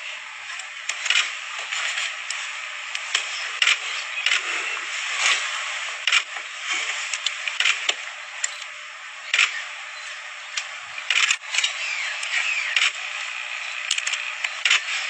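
Sharp clicks at irregular intervals, sometimes two or three close together, over a steady thin hiss with no low end.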